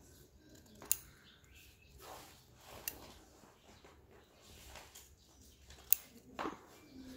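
Scissors snipping through folded craft paper: three sharp snips a couple of seconds apart, with softer rustling of paper between them.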